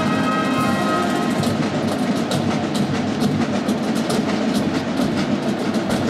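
Marching brass band with sousaphones and snare drums playing live. A held brass chord ends about a second in, and drum strokes then lead over the continuing band.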